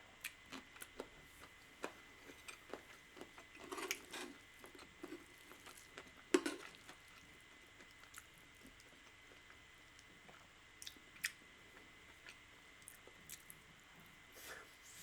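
Close-miked eating sounds of a person chewing creamy rice risotto: soft wet smacks and mouth clicks, busiest in the first seven seconds and sparser after.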